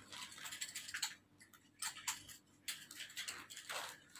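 Quiet rustling and light, irregular clicks of clothes being handled and sorted through.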